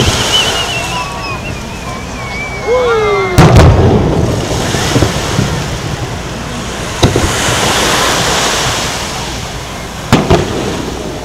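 A firework shell launching with a thump and climbing with a whistle that falls slowly in pitch for about three seconds, then bursting with a loud, deep boom. Further sharp bangs come about seven and ten seconds in.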